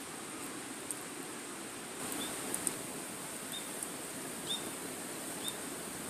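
Wood fire burning with a steady hiss and scattered sharp crackles and pops. From about two seconds in, short high chirps come roughly once a second.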